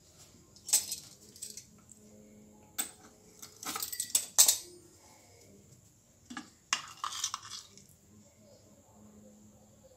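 Metal kitchen utensils, a pastry wheel cutter and a spoon, being handled and set down on a stone countertop: a few sharp clinks and knocks, with the loudest cluster about four seconds in.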